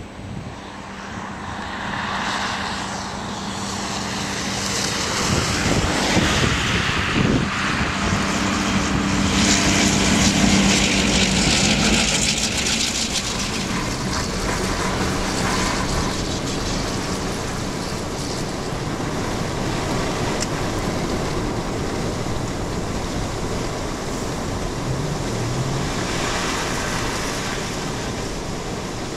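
GP38 diesel locomotives pushing a Jordan spreader through deep snow: a steady diesel engine hum under a loud rush of thrown snow that builds to its peak about ten seconds in. Later the roar turns steadier and lower, mixed with the road and wind noise of a moving car.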